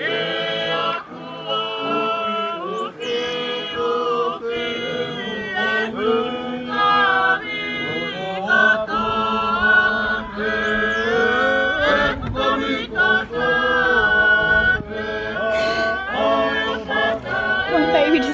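A group of voices singing a song together in harmony, choir-like, with a low note held steadily through the middle.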